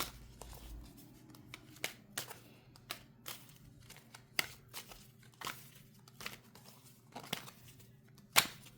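A deck of tarot cards being shuffled and handled by hand: a string of short, sharp snaps and clicks of the cards at uneven intervals, about one or two a second.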